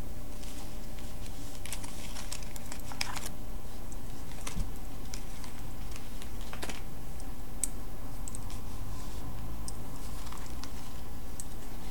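Tarot cards being dealt and laid down one after another on a cloth-covered table: irregular soft taps and clicks of card on card, bunched about two to three seconds in, over a steady low hum.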